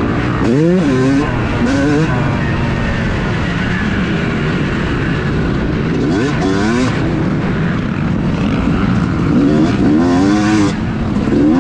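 2018 Yamaha YZ250 single-cylinder two-stroke motocross bike being ridden hard, heard from on board. The engine revs up in rising sweeps several times as the throttle opens, about a second in, around six seconds and again near ten seconds.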